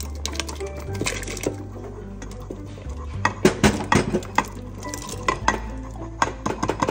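Kitchen dishes and utensils clinking and clattering in irregular clusters, densest in the middle, over background music with a low bass line.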